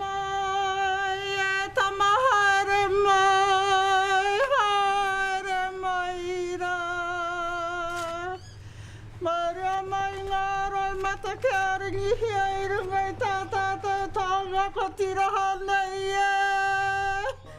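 A woman's karanga, the high Māori ceremonial call of welcome. It is one long, steady, high note with wavering upward flicks. It breaks off for a breath about eight seconds in, then is taken up again on the same note.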